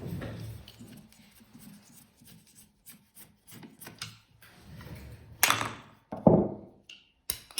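A black-powder revolver being taken apart by hand on a work surface, with its wooden grip coming off: light rubbing and scraping of wood and metal, then two sharp knocks about five and six seconds in and a short click near the end.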